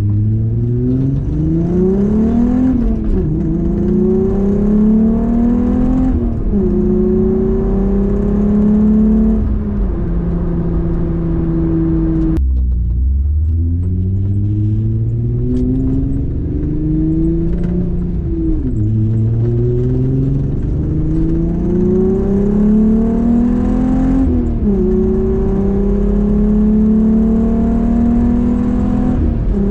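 Volkswagen VR6 engine accelerating through the gears: the engine note climbs, drops at each upshift and climbs again, several times. It breaks off suddenly about twelve seconds in, and a second pull through the gears follows.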